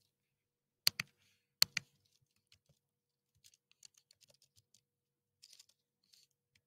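Typing on a computer keyboard as a password is entered: two pairs of sharp key clicks in the first two seconds, then softer, irregular key taps.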